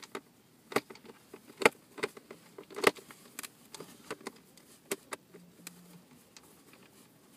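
A Phillips screwdriver tightening a screw through a metal strap plate into the plastic shell of a car seat: irregular sharp clicks and taps, about eight of them, the loudest a couple of seconds in.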